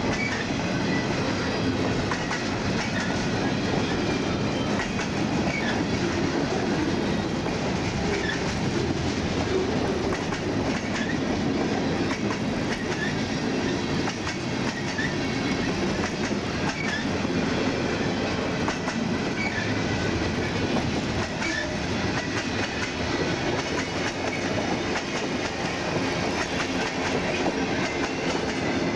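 CSX freight train cars rolling past: a steady rumble of wheels on rail with clickety-clack over the joints and scattered brief high squeaks from the wheels.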